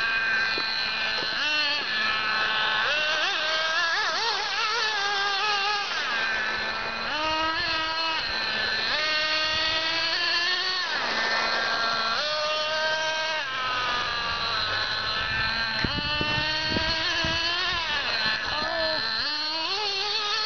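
Radio-controlled buggy's motor running, its pitch rising and falling again and again as the throttle is opened and let off.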